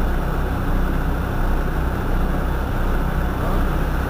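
Irisbus Citelis 18 articulated city bus standing at a stop with its engine idling steadily, heard from behind the bus.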